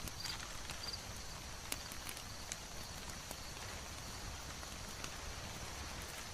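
Layered ambience: a steady soft hiss with scattered sharp crackles of a wood fire, and a few short high chirps in the first second.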